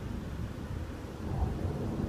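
Low, steady rumble of a formation of jet aircraft flying overhead, a little louder near the end.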